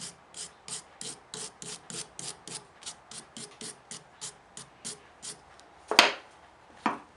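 Hand tool rasping over a mild steel workpiece in quick, even strokes, about three a second. It stops with a sharp metallic clank about six seconds in, followed by a softer knock.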